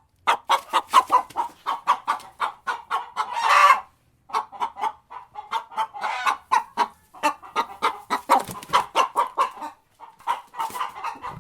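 Chickens clucking in quick runs of short calls, several a second. A longer, louder squawk comes about three and a half seconds in, and another near the end.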